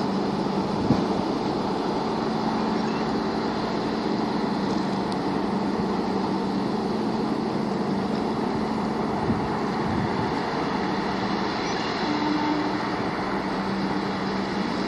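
Steady low engine hum carried across open harbour water from a container ship and its tug, over an even wash of wind and water noise, with two faint knocks, about a second in and at about nine seconds.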